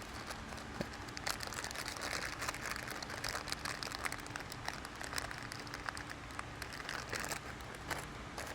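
Faint crinkling with many small irregular clicks, from hands handling the small parts of a fuel injector rebuild kit.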